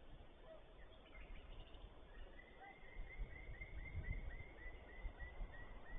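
A bird calling a steady run of short, slightly falling notes, about three to four a second, starting about two seconds in, over a low rumble of wind or handling noise.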